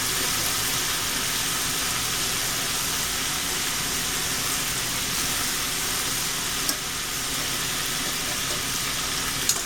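Flour-coated chicken livers frying in hot grease, a steady sizzle.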